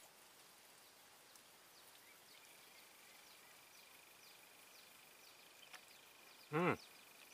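Near silence: faint outdoor ambience with a thin, steady high tone through the middle, and a brief voice-like sound near the end.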